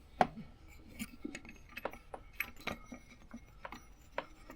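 Light clicks and clinks of small parts and tools being handled on a workbench or motorcycle, about a dozen separate taps, the sharpest about a quarter second in.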